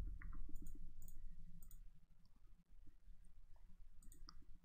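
A few faint, scattered computer mouse clicks over a low, steady rumble of background noise.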